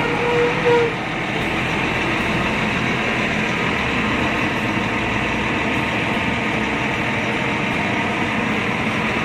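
Heavy diesel construction machinery running steadily, a continuous unbroken engine noise. A short, steady high tone sounds right at the start.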